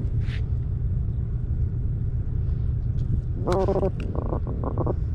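Steady low wind rumble on the microphone. About three and a half seconds in comes a short pitched grunt, then a quick run of short pulsed croaks.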